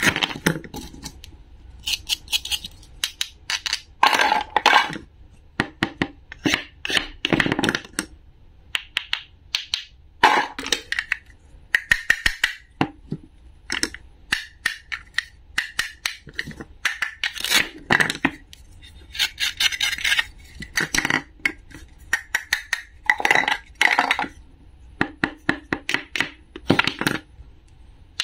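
Wooden toy knife and toy food pieces tapping, clicking and scraping on a wooden cutting board as the pieces are cut apart and handled: a long run of short sharp knocks broken by brief scraping stretches.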